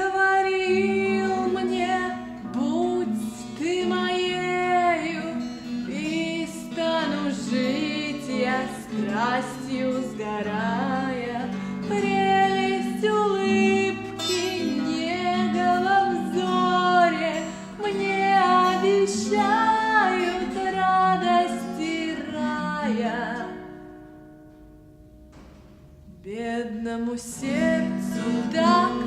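A woman singing a slow Russian romance with guitar accompaniment. The music drops to a short quiet pause about three-quarters of the way through, then picks up again.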